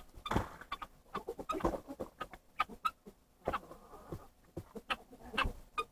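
Chickens clucking, over irregular crunches and knocks as a person walks in snow and handles a plastic water dish.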